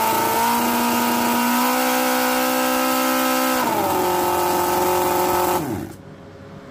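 Miniature 17.5 cc four-cylinder OHV model engine running at high revs, around 7,000 rpm, its pitch stepping up twice and then dropping back about three and a half seconds in. Near the end it cuts out and winds down quickly with a falling pitch.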